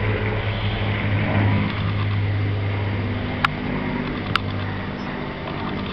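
Supermarine Spitfire piston engines droning overhead as a formation passes, a steady low drone slowly fading. Two sharp clicks about a second apart cut through it midway.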